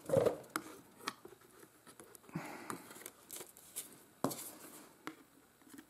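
Loose sheets of watercolour paper being handled and stacked on a tabletop: a series of light taps and knocks, the sharpest right at the start and about four seconds in, with a short paper rustle in between.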